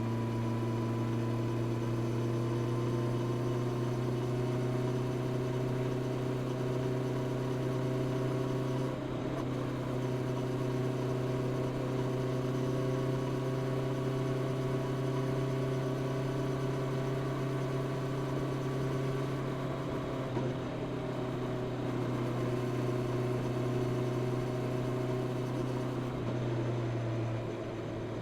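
Honda CB650R's inline-four engine through its stock exhaust, cruising at a steady, nearly constant pitch, with small throttle changes about a third of the way in and again in the last third.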